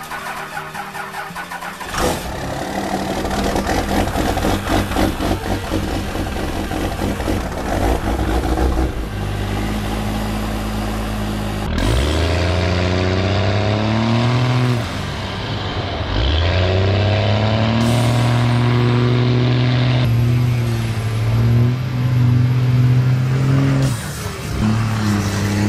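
Truck engine running, revved several times so that its pitch rises and falls, then settling back to a steady run, with abrupt shifts in the sound along the way.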